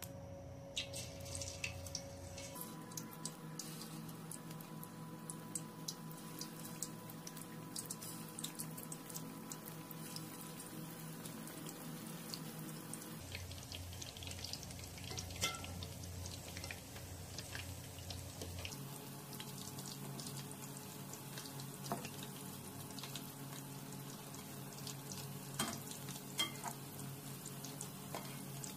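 Gram-flour batter pakoras deep-frying in hot oil in an aluminium wok: continuous bubbling with many sharp little crackles and pops. A faint steady hum in the background changes suddenly a few times.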